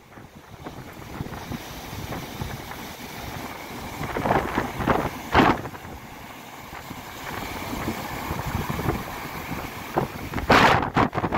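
Storm waves breaking and surf rushing on a beach in a strong wind, with gusts hitting the microphone. Sharper rushes come about four and five seconds in, and the loudest near the end.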